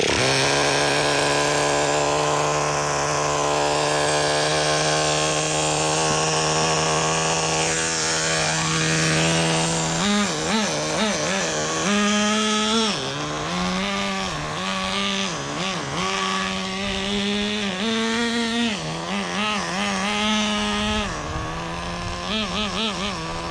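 Traxxas Nitro Rustler's small 2.5 nitro engine, a two-stroke glow engine, running during break-in. It holds a steady high-pitched note for about ten seconds, then revs up and down again and again under throttle.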